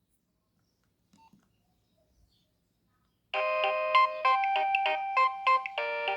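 Nokia 6560 mobile phone playing a ringtone: near silence with a couple of faint clicks, then about three seconds in an electronic melody starts, several notes sounding together and changing in a quick rhythm.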